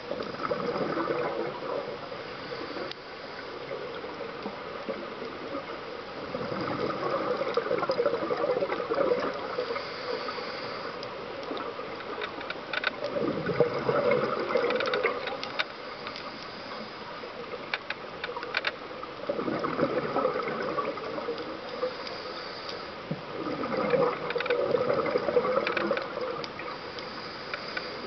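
Scuba regulator exhaust bubbles gurgling underwater as the diver breathes out, in five bursts, one every five or six seconds, with a quieter wash between.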